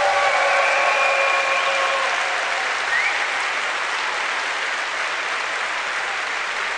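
Arena audience applauding steadily after an ice dance exhibition, the clapping easing off slightly toward the end.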